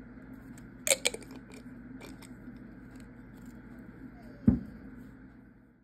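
Small handling noises of kitchenware over a steady low hum: two sharp clicks about a second in, a few lighter ticks, then one thump about four and a half seconds in.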